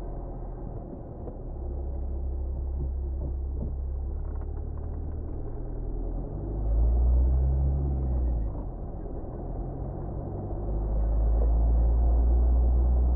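Car driving, a steady low rumble of engine and road noise that swells louder about six and a half seconds in, eases, then rises again from about ten and a half seconds.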